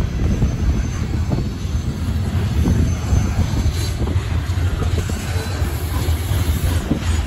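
Covered hopper cars of a freight train rolling past close by: a steady low rumble of steel wheels on rail with irregular clicking and clatter.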